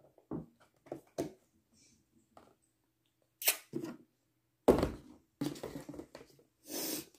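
Cardboard ice cream tubs handled on a tabletop: a few light clicks and knocks, then several louder thuds and rustles, the loudest about two-thirds of the way through, as one tub is lifted and stacked on another.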